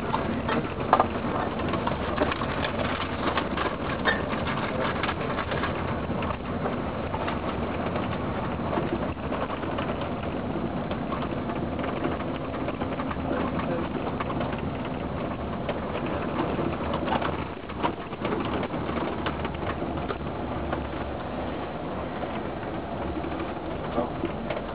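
Steady engine and road noise heard from inside a moving vehicle, with a brief dip about three quarters of the way through.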